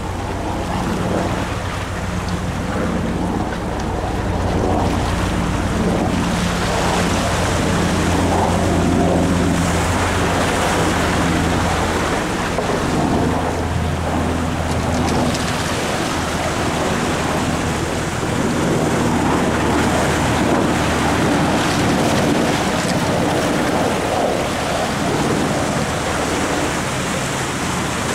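Sea surf washing and breaking over jetty rocks, with wind buffeting the microphone. A low steady hum sits underneath through roughly the first half.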